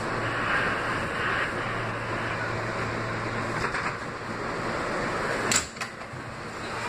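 R160B subway train slowing to a stop at an elevated station, a steady rumble with a low hum. A couple of sharp clunks come about five and a half seconds in, after which the running noise drops away.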